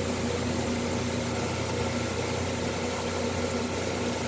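Steady mechanical hum with an even hiss and faint steady tones, unchanging throughout.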